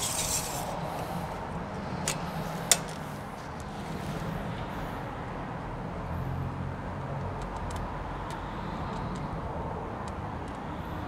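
A tape measure and a wooden board being handled: a few sharp clicks, the loudest about three seconds in, over a steady low hum.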